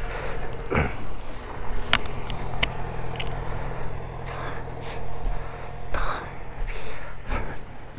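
Motorcycle engine running at a steady speed, with a few brief noise swells and some sharp clicks over it.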